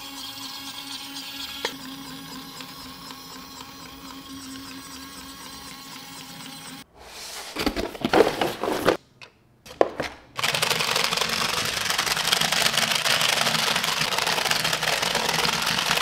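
Small electric motor and plastic gears of a remote-control toy whirring steadily. About seven seconds in come a few seconds of sharp, irregular handling noises. After that comes a louder, harsher whirr from a second toy.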